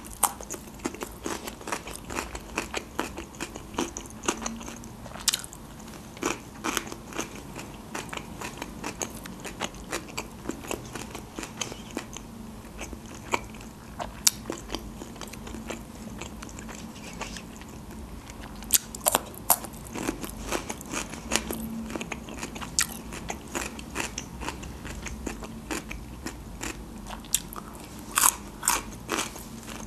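Close-miked biting and chewing of crunchy fresh cucumber sticks: sharp crunching bites and wet chewing all through, with louder clusters of crunches every few seconds.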